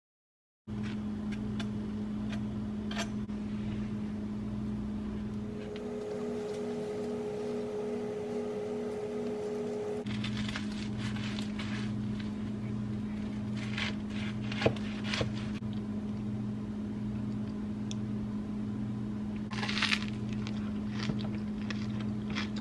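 Low, droning background music of held tones with a slow pulse, starting abruptly from silence. A few light clicks and a short scrape from a knife working through a sandwich on a paper plate.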